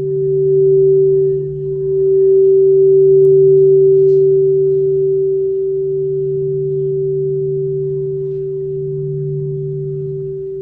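Quartz crystal singing bowls ringing with two steady, sustained tones, one low and one higher, slowly swelling and fading in loudness.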